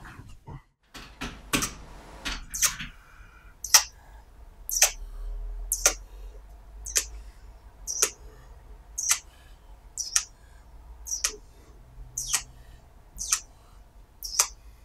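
A bed creaking in a steady rhythm, about one short squeak a second, after a few seconds of rustling bedding.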